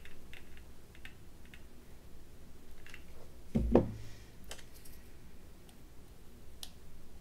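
Light plastic clicks and taps of hands handling the spoon-covered jar and a Surebonder hot glue gun. A little over three and a half seconds in there is one dull thump as the glue gun is set down on the cutting mat, followed by a few faint clicks as a spoon is pressed into the glue.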